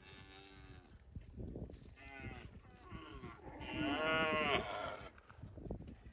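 Cows mooing: several short moos in a row, the loudest about four seconds in.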